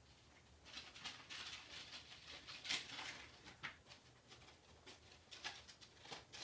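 Faint rustling and crackling of a gift's packaging being opened and handled: a scatter of short crackles, the loudest about two and a half seconds in.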